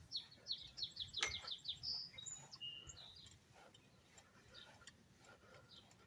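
A small songbird singing, heard faintly: a fast run of high, down-slurred notes for about two seconds, then a few clear whistled notes, then scattered soft chirps. A single sharp click sounds about a second in.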